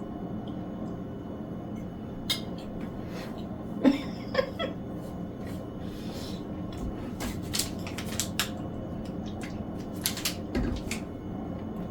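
Scattered light clicks and knocks of dishes and utensils being handled, several separate taps spread through, with a brief squeak about four seconds in.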